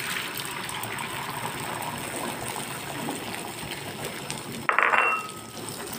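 Beaten egg sizzling steadily as it fries in a non-stick pan over a gas flame. A short ringing clink comes about five seconds in.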